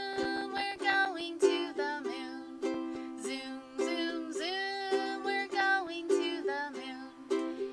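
Ukulele strummed in steady chords, with a woman singing a children's song over it.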